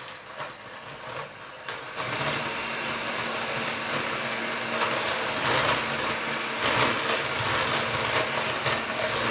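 Electric hand mixer running, its twin beaters whisking eggs and sugar in a stainless steel bowl for a sponge batter, beaten until it rises. A steady motor hum that grows louder about two seconds in.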